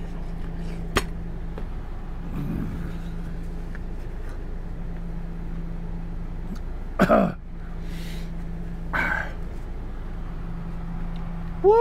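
A man reacting to very hot, spicy food: a loud voiced exhale falling in pitch about seven seconds in and a breathy one about two seconds later, with a sharp click about a second in. A steady low hum from a portable air conditioner runs underneath.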